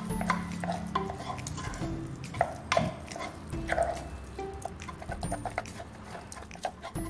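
Sticky chicken meatball dough with tapioca flour being stirred and kneaded in a wooden mortar: irregular wet squelches and clicks of spoon and fingers working the paste against the wood.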